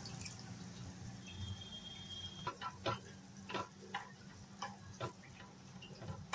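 Spatula stirring thick boiled masoor dal into spinach in a non-stick kadai. The first couple of seconds are soft and wet; from about two and a half seconds in come irregular light taps and scrapes of the spatula against the pan.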